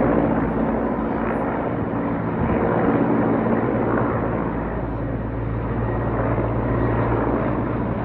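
Mi-8 twin-turbine helicopter in flight: a steady drone of engines and rotor over a rushing noise, its low hum growing a little stronger about halfway through.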